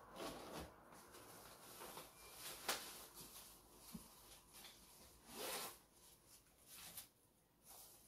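Faint, scattered rustling and scraping of packaging materials being handled at a desk, with a sharper scrape a little before the middle and a longer rustle about two-thirds of the way through.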